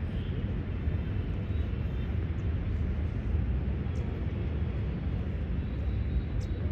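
Steady low rumbling background noise that flickers constantly, with no distinct events: open-air ambience such as wind on the microphone or distant traffic.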